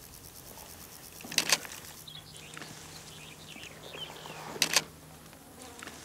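Insect buzzing, a low steady drone that swells louder twice, briefly, about a second and a half in and near five seconds, as if passing close.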